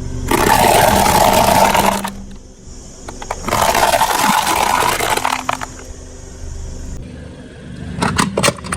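Objects crushed under a car's tyre: two long bursts of noisy crushing, then a quick run of sharp cracks near the end.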